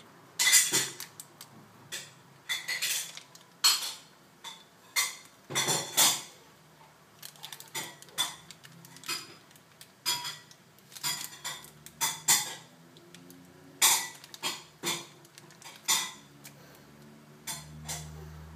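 Kitchenware clinking and knocking at a frying pan on the stove: a run of irregular sharp clicks, roughly one every half second to second, while egg yolk is swirled into boiling syrup in the pan.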